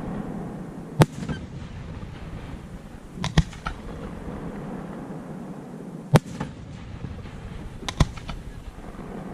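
Fireworks display: aerial shells bursting in five sharp bangs a couple of seconds apart, two of them close together about three seconds in, with a low rumble between them.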